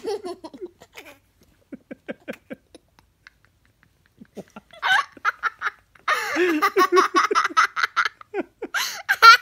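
A young girl laughing: soft, scattered giggles at first, building about five seconds in to loud, rapid, breathless belly laughter.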